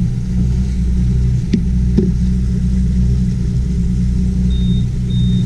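Boat engine running steadily with a low hum. Two short high electronic beeps, about half a second apart, sound near the end.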